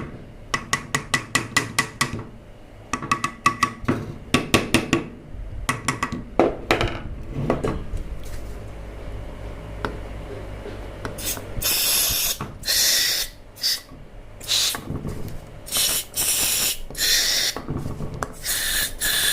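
Quick runs of small metallic clicks, then repeated short hissing bursts of aerosol spray polish, used as a lubricant on the ABS modulator's jammed valves.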